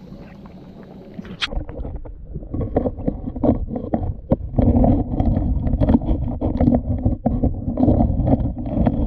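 Underwater sound of creek-bed stones and gravel clattering and knocking as the bottom is dug and probed with a pinpointer, over a muffled churning rumble of stirred water. It starts with a sharp click about a second and a half in and grows denser and louder.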